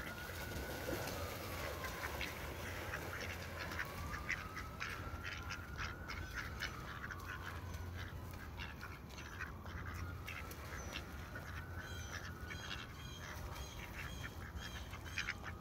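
Domestic ducks feeding in grass close by, their bills making many quick ticking, nibbling sounds, with occasional quacking. A faint whine slowly rises and falls in the background every few seconds.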